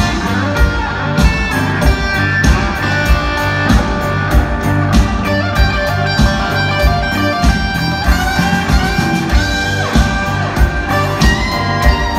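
Live rock band with an electric guitar solo: sustained lead notes with string bends and slides over steady drums and bass, recorded from the audience through the concert sound system.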